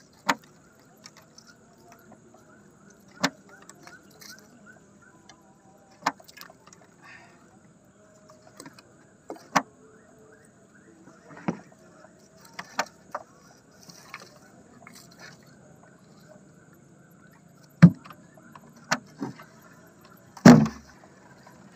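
Irregular sharp knocks and thumps on a small wooden boat as a gill net is hauled aboard and fish are worked out of the mesh, about a dozen in all, the loudest two coming near the end.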